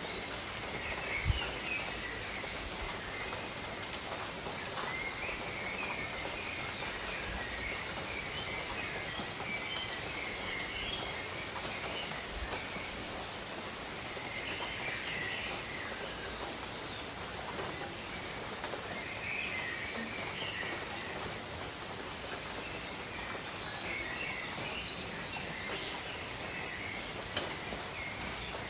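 Steady gentle rain pattering on leaves, with birds chirping faintly at intervals.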